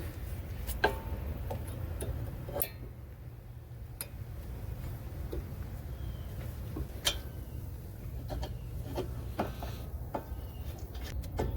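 Scattered light metallic clicks and taps of brake parts being handled and fitted, the outer brake pad going into the caliper, over a steady low hum.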